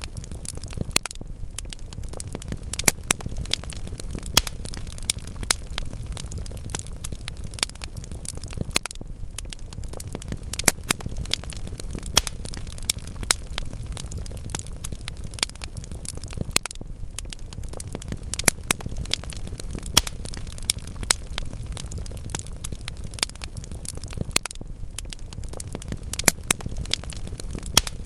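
Wood fire burning in a fireplace: logs crackling with frequent, irregular sharp pops over a steady low rumble of the flames.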